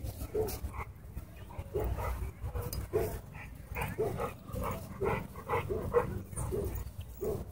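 A dog vocalizing in short, repeated barks and yips, coming thickest about four to six seconds in.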